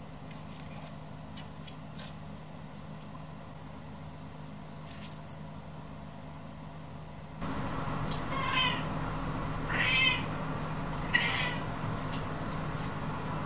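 A domestic cat meows three times, a little over a second apart, in the second half, asking for its evening snack.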